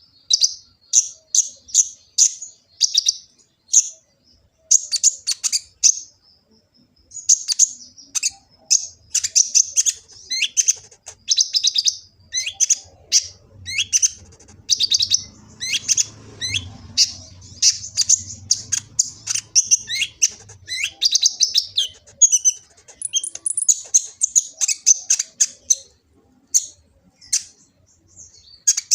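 Kolibri ninja sunbird singing a fast, busy song of high, sharp chirps and twitters, broken by a couple of short pauses.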